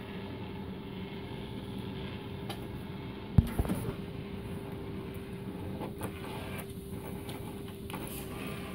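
Treadmill motor and belt running with a steady hum and a constant whine. A single sharp knock comes about three and a half seconds in.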